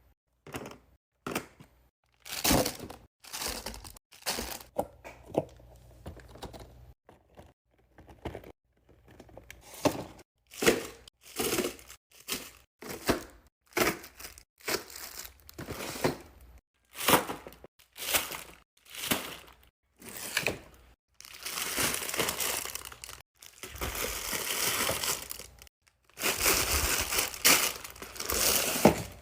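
Fidget toys being handled: a long run of short, sharp plastic clicks and snaps, then about 21 s in two longer stretches of crinkling and crumpling.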